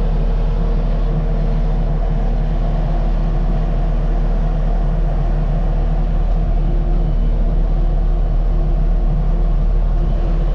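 Diesel engine running steadily at constant speed, a low even drone with a deep rumble.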